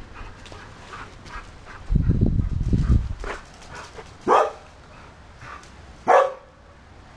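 A dog barking: two loud single barks about two seconds apart in the second half, with a few fainter ones before them. A low rumble on the phone's microphone about two seconds in.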